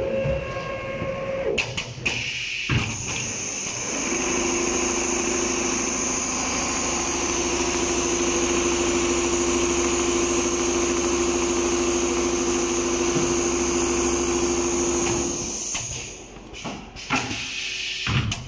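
Computer-controlled leather sewing machine stitching: a fast, even needle rhythm over a steady motor whine. It starts about three seconds in and stops a couple of seconds before the end, with clicks and a short tone from the machine before and after the run.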